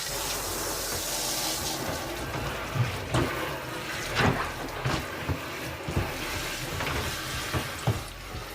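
Water pouring steadily into the wash tub of a Giantex twin-tub portable washing machine as it fills for a rinse cycle, with a few short knocks scattered through.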